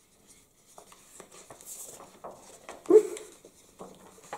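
Marker pen scratching on paper in short handwriting strokes, with a brief laugh about three seconds in.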